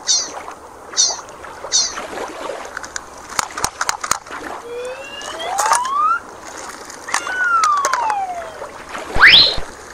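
Shallow water lapping on a pebbly shore, overlaid with cartoon sound effects: three short bright jingles in the first two seconds, a few clicks, then a slowly rising whistle, a slowly falling whistle, and a quick upward swoop near the end.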